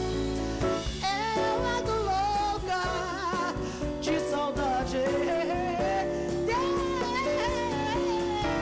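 A woman singing a held, wavering melody with wide vibrato, backed by a live band with drum kit, bass guitar and keyboards.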